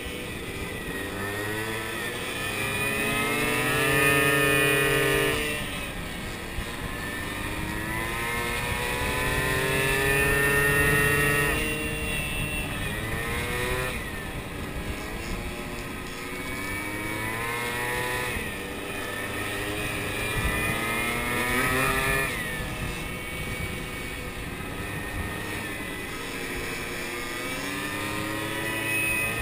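Small moped scooter engine running under way, its pitch climbing as the throttle opens and falling off again several times through the bends, over steady wind noise on the microphone.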